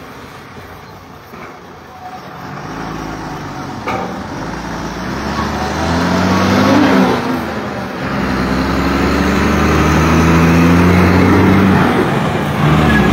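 A motor vehicle's engine grows steadily louder from about two seconds in. Its pitch rises and dips midway, then it runs steady and loud.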